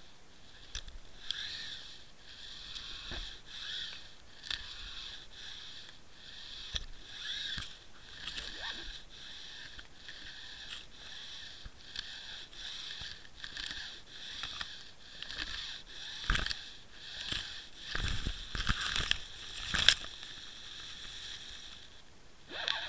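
Underwater sound heard through a fishing camera's housing: a steady watery hiss with many scattered sharp clicks. In the second half come several heavier knocks and rubs as the camera bumps against kelp and the bottom.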